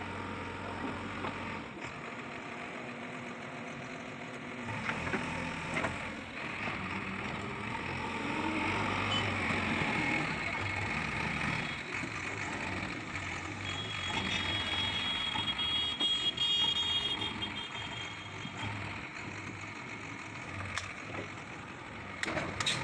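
JCB backhoe loader's diesel engine running under load as its front bucket pushes against a broken-down truck. A high beeping tone sounds for a few seconds past the middle.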